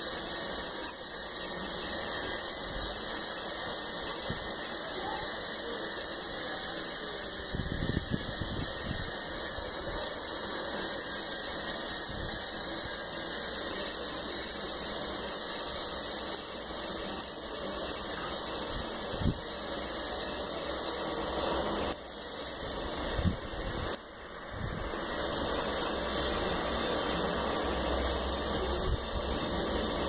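Steady airy hiss of blowing air, with a few brief low knocks about 8, 19 and 23 seconds in.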